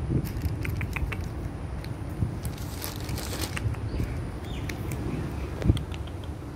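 Outdoor background rumble with scattered light clicks and taps, a brief hiss about halfway through and one sharp thump near the end; the cat does not meow.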